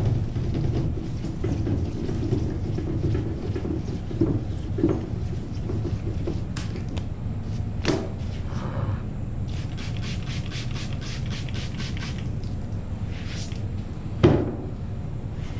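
A 1500-grit Trizact hand pad wet sanding the clear coat of a painted motorcycle tank, with a quick run of short scrubbing strokes around the middle. A steady low rumble runs underneath, with a few short knocks.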